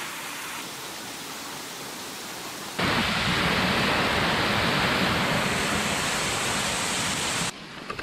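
Steady rushing and splashing of a narrow waterfall running at low flow down a rock face. It is fainter at first, becomes close and much louder about three seconds in, and drops back sharply near the end.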